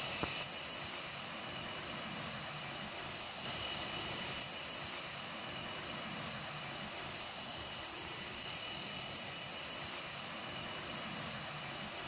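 Steady, unbroken high drone of cicadas in tropical forest, swelling briefly about three and a half seconds in.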